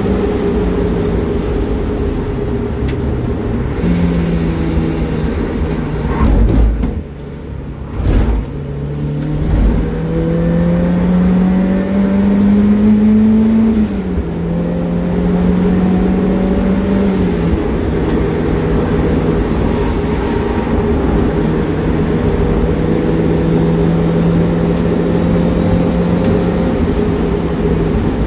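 A turbocharged Mazda MX-5's engine heard from inside the cabin while driving on track. It falls off briefly with a couple of thumps about seven seconds in, then climbs steadily in pitch under acceleration, drops back about halfway through, and runs on at a steady note.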